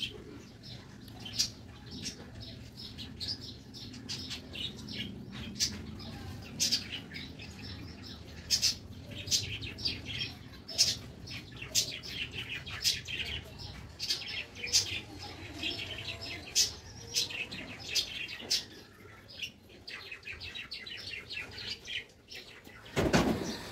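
Small birds chirping over and over in quick, irregular calls, above a low steady hum. A short loud burst of noise comes near the end.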